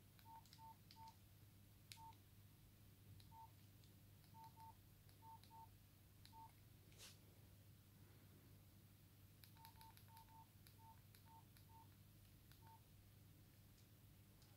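Nokia 5130 XpressMusic keypad tones: short, faint beeps all at one pitch, one for each key press, each with a light key click. They come in two irregular runs of about eight to ten beeps, with a pause of a few seconds between them.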